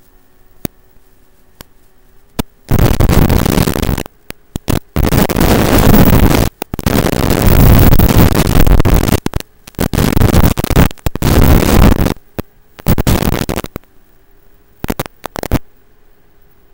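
Loud bursts of radio static from an analog FPV video receiver, cutting in and out abruptly from about three seconds in until shortly before the end, as the video link from a Tiny Hawk S micro drone breaks up. Between the bursts a faint hiss with a steady low hum.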